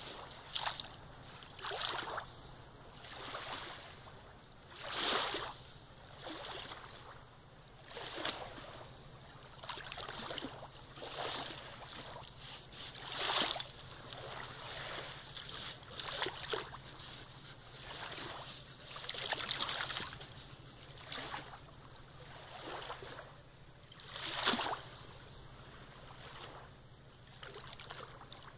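German Shepherd digging in wet sand, its front paws scraping and flinging sand in quick irregular bursts, a stroke or two a second.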